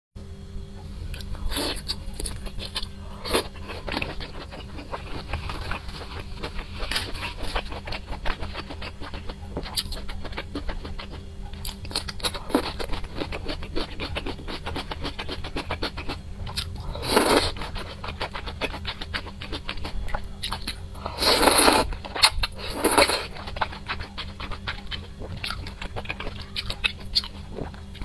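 Close-miked eating sounds: chewing and wet mouth clicks while eating spicy hot pot noodles, with three louder slurps in the second half. A steady low hum runs underneath.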